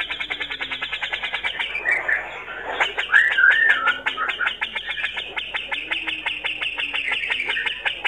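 Male cucak jenggot (grey-cheeked bulbul) calling in a long, rapid chattering rattle of about ten notes a second. The rattle breaks briefly about two seconds in, and a short wavering whistle cuts through it just after three seconds.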